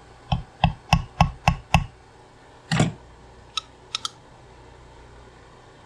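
Roll pin being driven into a 200-4R automatic transmission valve body with a pin driver: six quick ringing metal taps, about three a second, then a single heavier knock about three seconds in and two light clicks.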